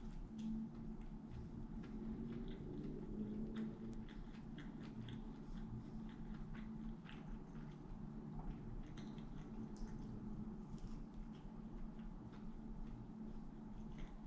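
A person chewing a fried chicken sandwich close to the microphone: faint, scattered mouth clicks and bites over a steady low hum.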